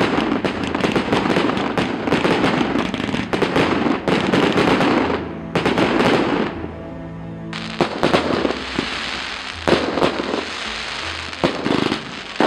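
Aerial fireworks crackling densely, a rapid stream of small pops over a bed of background music. The crackle drops out for a couple of seconds in the middle, leaving the music, then returns more sparsely with a few sharp bangs near the end.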